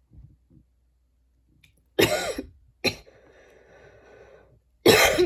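A young woman coughing hard: a harsh cough about two seconds in, a short second cough right after, a quieter rasping breath, then another hard cough near the end that trails off falling in pitch.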